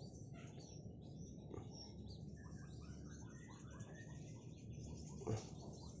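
Birds chirping faintly: a run of short, varied notes with quick downward-sliding calls in the middle, over low background noise.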